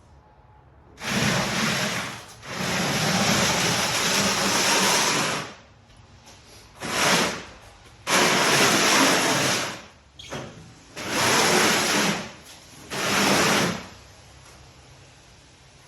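Used engine oil being poured from a drain pan into a jug, in seven rushing pours of about half a second to three seconds each with short pauses between.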